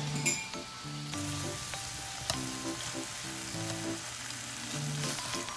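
Thin slices of beef with green onion sizzling steadily in a frying pan, with a few light clicks as wooden chopsticks turn them.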